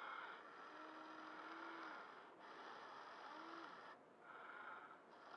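Faint whine of the Huina 580 RC excavator's small electric drive motors working the arm. It stops briefly about two, four and five seconds in as the controls change, and a lower hum comes in twice.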